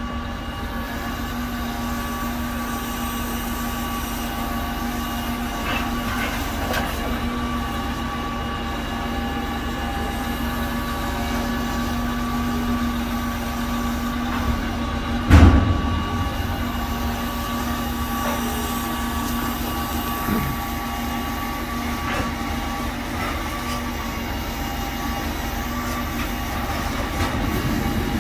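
Knuckle-boom grapple truck working: its diesel engine runs steadily with a constant hum and whine from the hydraulics. A single loud thump comes about halfway through.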